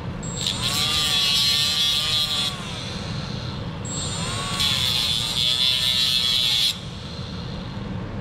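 A cordless die grinder with a thin cutoff wheel runs at high speed in two bursts of about two to three seconds each, whining as the wheel eats into plastic to widen a slot.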